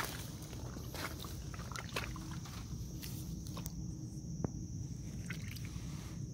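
Footsteps and rustling through grass and dry stubble, with a few light clicks of handling over a low rumble of movement and wind on the microphone, and a steady high hiss in the background.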